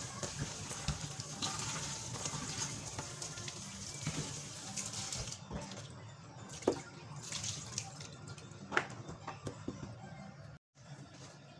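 A kitchen tap runs into a stainless steel sink while hands swish and rinse cut vegetables in a plastic tub. After about five seconds the flow stops, leaving a few knocks and rattles of the tub and vegetables.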